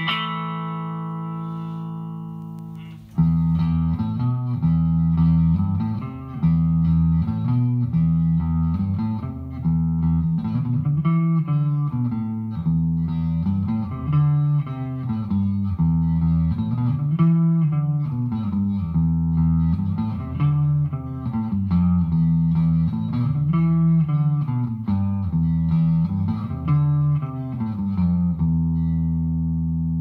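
Guitar played clean through a Behringer V-AMP PRO amp-modelling processor. A chord rings and fades, then from about three seconds in a picked chord phrase repeats about every three seconds, and near the end a final chord is left ringing.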